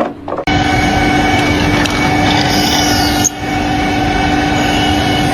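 Steady, loud machine noise with a constant droning hum, starting suddenly about half a second in and breaking off briefly a little after three seconds before it resumes.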